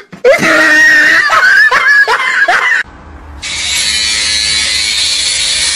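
High-pitched laughing and squealing for nearly three seconds, then, after a brief lull, a small electric hair clipper buzzing steadily.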